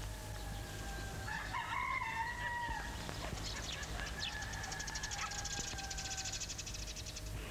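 A rooster crowing once, about a second and a half in, followed by a fast, high trill that runs from about three seconds in until near the end.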